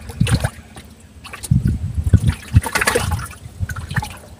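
Water lapping and gurgling against a small boat, with irregular low thumps.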